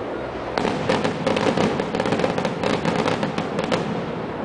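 Fireworks crackling: a dense, rapid run of small sharp pops that starts about half a second in and keeps going.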